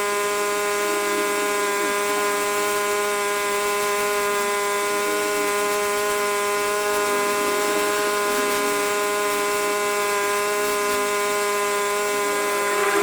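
A machine's motor running steadily at a constant pitch, giving an even mechanical whine with a light rattle under it.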